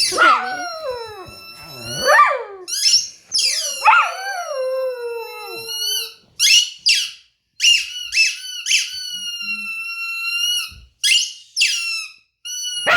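Pet dog howling: a run of drawn-out, high-pitched howls with short breaks between them, several sliding down in pitch and the longest held steady for about three seconds near the end.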